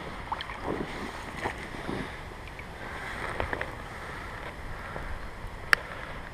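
Water of a shallow gravel stream lapping and trickling close to the microphone, with small splashes scattered through it. A single sharp click sounds near the end.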